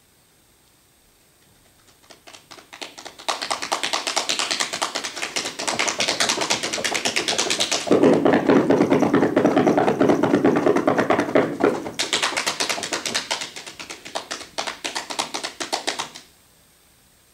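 One person making a body-percussion rainstorm. Faint rubbing and tapping starts about two seconds in and builds into fast hand patting. From about 8 to 12 seconds it turns into heavier, louder drumming of the feet on the carpeted floor, then drops back to lighter patting that fades and stops just after 16 seconds: the crescendo and decrescendo of the rainstorm.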